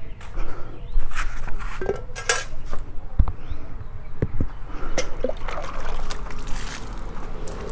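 Water scooped with a plastic mug from a steel bowl and splashed over a motorcycle, with scattered knocks and clinks of the mug against the bowl.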